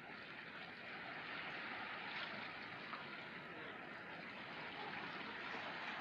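Steady hiss and wash of harbour water lapping, with no distinct calls or knocks. It fades up over the first second or so, then holds level.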